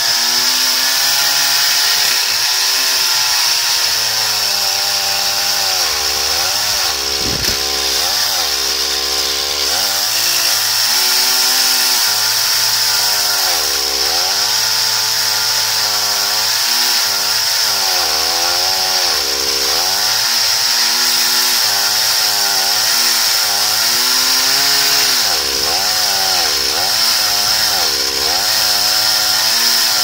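Chainsaw running under load in an Alaskan chainsaw mill, ripping lengthwise through a large ash log. The engine pitch rises and falls every second or two as the load on the chain changes.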